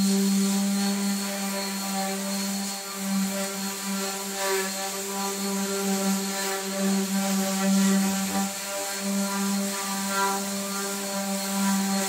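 Random orbital sander running steadily as it sands a cedar fence picket: a steady motor hum with a hiss of the pad on the wood, dipping briefly now and then as the sander is moved along the board.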